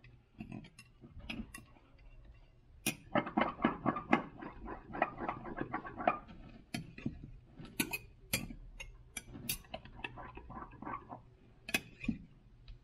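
A stirrer clinking and scraping against a glass measuring cup in quick, irregular taps, mixing powders into a liquid soft-plastic mix.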